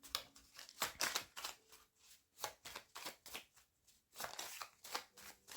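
A deck of oracle cards being shuffled by hand: a run of quick, irregular soft slaps and flicks of card on card, with short pauses.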